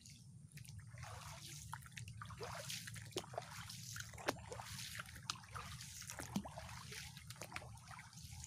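Shallow stream water trickling and gurgling, with many small drips and plops over a low steady rumble.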